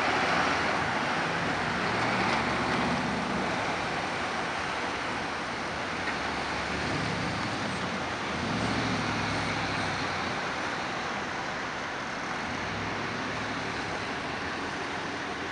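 Mack R series cement mixer truck's diesel engine pulling away through an intersection, loudest at first and fading into the noise of passing street traffic.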